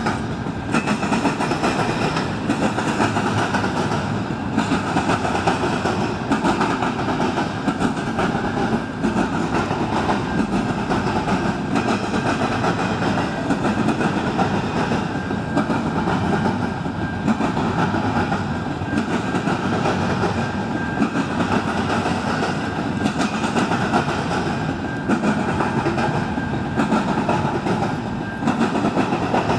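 CN double-stack container freight train rolling past: a steady rumble and clatter of steel wheels on the rails as the cars go by.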